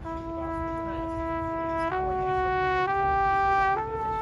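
A marching band brass instrument playing a slow line of long held notes, stepping up in pitch four times, with the highest note held at the end.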